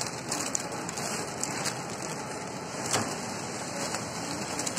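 Flow-wrapping packaging machine running, a steady mechanical noise with a few sharp clicks, the clearest about three seconds in.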